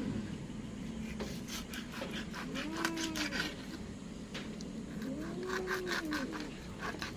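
An animal calling twice, each a drawn-out call that rises and then falls in pitch, over a run of quick clicks and crackles.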